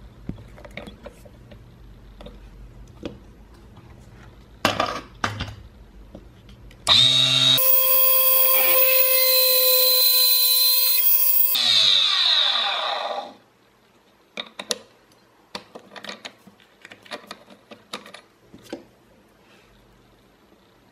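Clicks of a drill chuck key, then a mini lathe's electric motor spins up about seven seconds in. It runs loud and high-pitched for about five seconds while a hand-held 2 mm drill bit cuts a centered hole into the end of a small brass pin spinning in the chuck. The whine then falls away as the motor coasts down, followed by scattered small clicks from handling the chuck.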